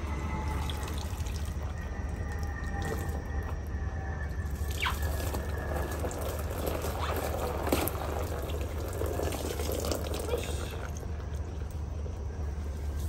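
Water splashing and dripping as a soaked plush toy is rinsed under a garden hose, the splashing heavier around the middle. A steady low rumble runs underneath.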